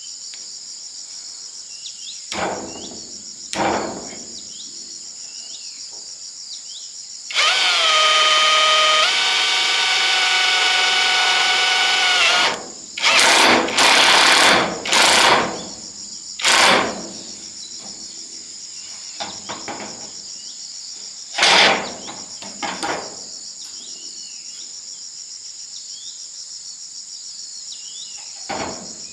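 Power drill running in bursts: a couple of brief runs, one held for about five seconds with a step in pitch partway through, then several short runs. Insects keep up a steady high drone underneath.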